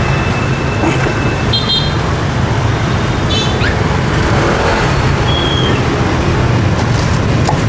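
Steady rumble of busy road traffic passing close by, with a few short high beeps.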